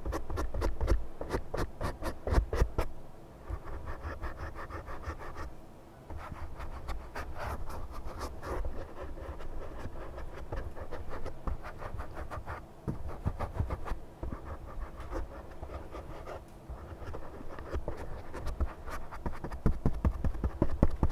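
Close-miked scratching and crackling: a dense run of quick clicks and rubs, with short pauses between passes.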